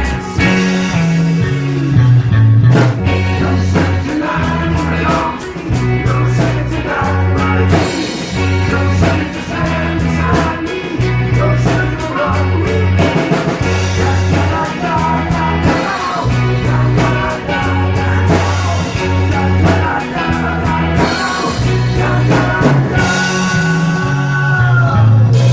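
A rock band playing a song, with drums keeping a steady beat under a repeating bass line and singing.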